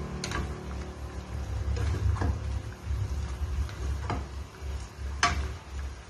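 A cooking utensil knocking against a frying pan as a whole chicken in thick sauce is turned: about five sharp, irregular clicks, the loudest a little after five seconds in.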